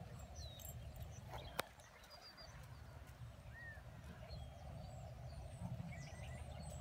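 Quiet outdoor ambience: a low steady rumble with a few faint bird chirps scattered through it, and one sharp click about a second and a half in.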